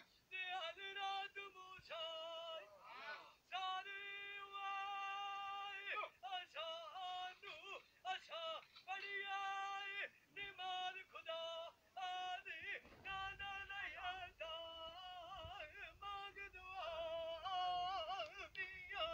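A man singing a Punjabi dhola unaccompanied in a high voice, holding long notes with wavering ornaments, broken by short breaths between phrases.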